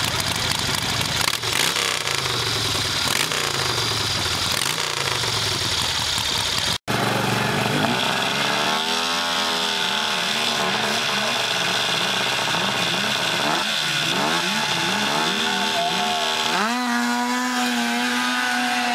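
A V-twin hillclimb motorcycle's engine running and being revved at the start line. After a cut, a snowmobile engine is blipped up and down in short revs, then about two seconds from the end it rises sharply to a high, steady full-throttle pitch as the sled launches up the dirt hill.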